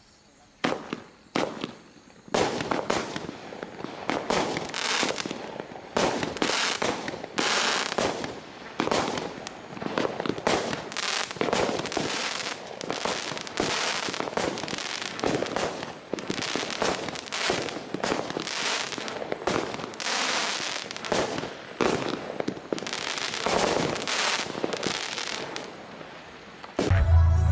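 Diamond Fireworks Storm Shadow 19-shot barrage firing. A few separate shots come in the first couple of seconds, then a near-continuous run of shots and sharp bangs until near the end.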